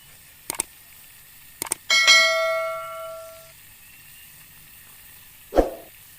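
A single metallic, bell-like strike about two seconds in that rings and fades over about a second and a half. A few light clicks come before it, and a dull thump sounds near the end.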